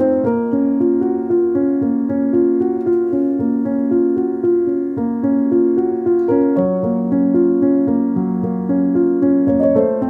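Instrumental background music, a steady run of held notes changing every half second or so.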